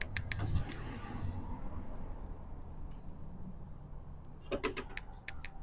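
Light metallic clicks and rattles from the table saw's rip fence being moved and set to a 6-inch width: a quick group of clicks at the start and another about four and a half seconds in, over a faint low hum.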